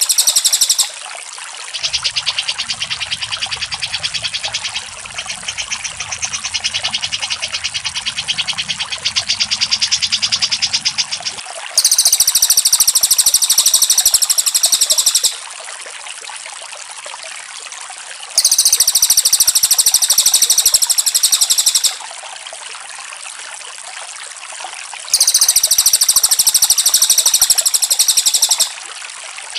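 Bird-song tutor recording (masteran) of cucak jenggot and cililin calls. A loud, high, rapid trill lasting about three and a half seconds comes three times, roughly every six to seven seconds. Before the first trill there is a softer run of fast repeated notes, and a quieter background hiss fills the gaps.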